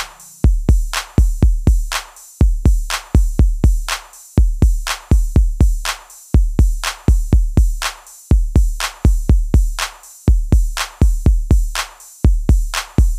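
Background music: a drum-machine beat of sharp hits, each with a deep bass kick, repeating at a steady rhythm with no melody over it.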